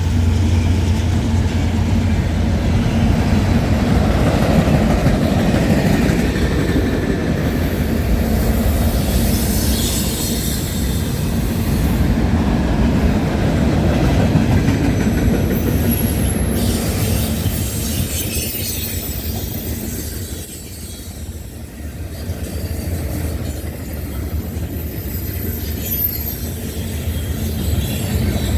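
Freight train cars rolling past close by: a continuous rumble of steel wheels on rail, with thin high-pitched wheel squeals in the second half.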